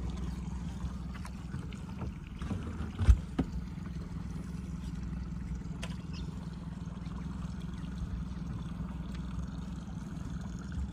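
A small fishing boat's motor running steadily with a low hum, and a sharp knock about three seconds in with a lighter one just after.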